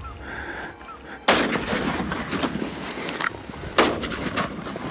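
Two shots from a big-bore double rifle, about two and a half seconds apart, each a sudden loud blast with a trailing echo.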